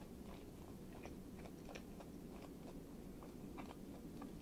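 A person chewing a mouthful of miso katsu sandwich, a breaded fried cutlet in soft white bread, with small irregular crisp clicks over a steady low hum.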